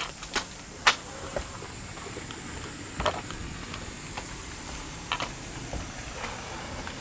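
Steady high-pitched chorus of insects, with scattered sharp clicks, the loudest about a second in.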